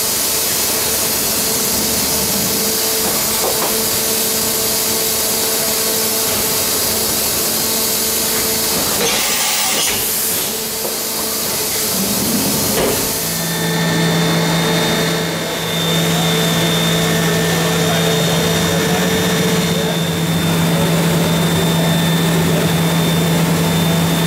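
Matsuura MAM-500HF horizontal machining centre running with coolant spraying inside its enclosure: a steady hiss over a machine hum. About nine to ten seconds in there is a short burst of louder hiss, and from about thirteen seconds a steady hum with a higher whine holds on.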